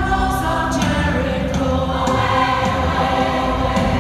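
A large mixed community choir of women and men singing together in a concert hall, holding long notes.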